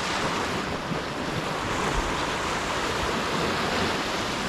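Ocean surf washing steadily, with wind gusting on the microphone.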